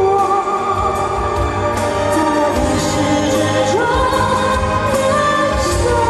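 A male singer with a very high voice sings with instrumental accompaniment, holding long notes and sliding up between pitches, once about four seconds in.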